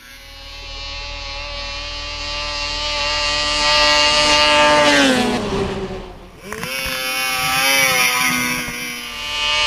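Racing snowmobile engines at full throttle: a high engine note climbs steadily for about five seconds and then slides down in pitch. After a short dip, another sled's engine revs up and holds high toward the end.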